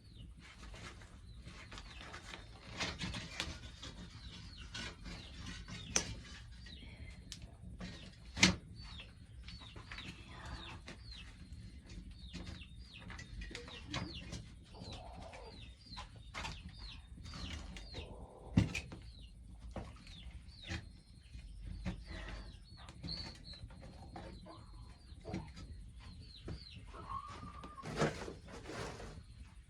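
Birds chirping over and over in short, quick calls, with a few sharp knocks now and then.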